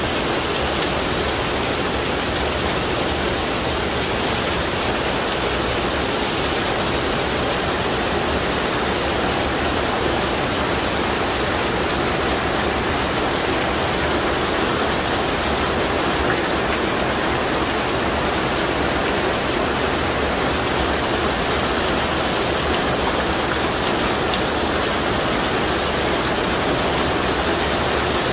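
Heavy rain falling steadily onto a paved courtyard and splashing into standing water, with runoff pouring off the edge of an overhead roof.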